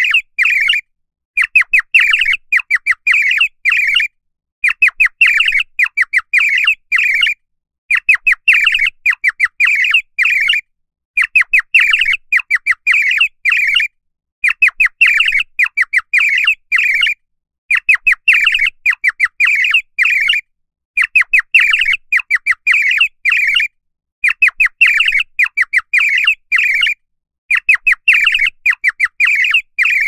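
Cartoon dizzy-birds sound effect: a bird whistle tweeting in bursts of quick high chirps. Each burst lasts about two and a half seconds and is repeated over and over with short gaps. It is the classic cartoon cue for a character knocked dizzy.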